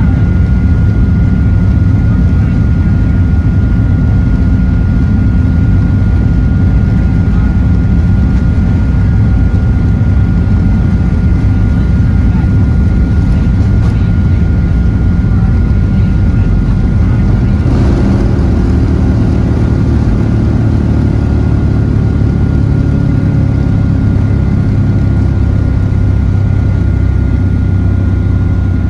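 Boeing 737-800's CFM56-7B turbofan engines heard from inside the cabin: a loud, steady rumble with a steady whine on top. A brief swell comes about eighteen seconds in, after which the rumble changes.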